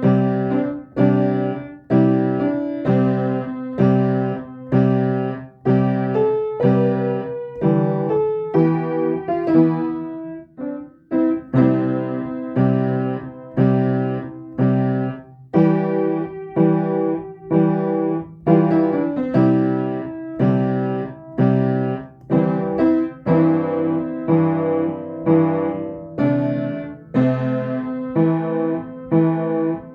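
Piano playing a gentle chordal piece, with chords struck about once a second under a simple melody.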